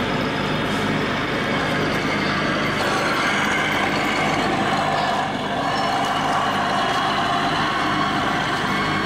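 Radio-controlled scale model trucks running, with a steady truck-engine sound.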